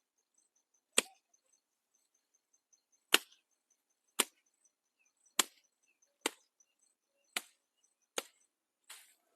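Seven sharp chopping strikes at an uneven pace of about one a second: a blade hacking through overgrown brush as it is cut back by hand.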